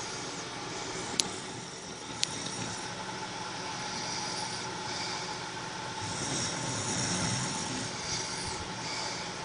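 A man snoring in his sleep, a low swell of breath rising about six to seven seconds in, over a steady background hum. Two short sharp clicks come about one and two seconds in.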